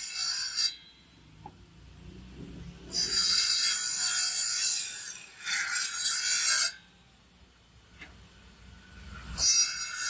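Table saw's circular blade cutting through wooden planks in three passes: one cut ending within the first second, a longer cut from about three seconds in to nearly seven, and another starting near the end, with much quieter gaps between.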